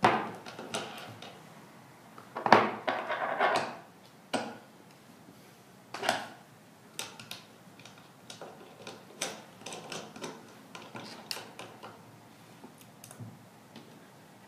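Small metal clicks and clinks as metal fastener parts and press dies are handled and seated on a cast-iron hand press, with a louder burst of rattling handling about two to four seconds in and scattered lighter ticks after.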